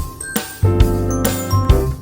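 Background music: an upbeat tune with a steady beat, bell-like chimes and a bass line.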